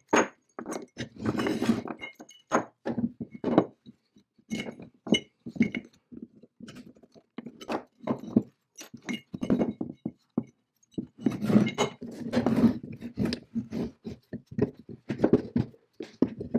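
Cast iron and steel parts of an antique vise-drill-anvil combination tool being handled on a wooden workbench: an irregular run of clinks, knocks and scrapes, some with a short metallic ring.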